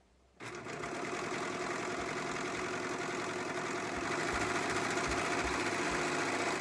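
Brother 1034D serger (overlocker) starting abruptly about half a second in and running steadily at speed, stitching along a fabric edge, then stopping at the end.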